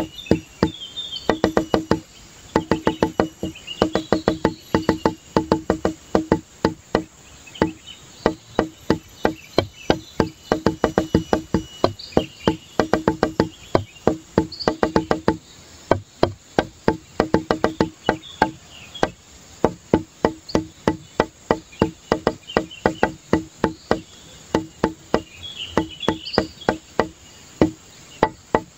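Background music: fast, evenly spaced clicking percussion notes over a low tone, in short repeating phrases.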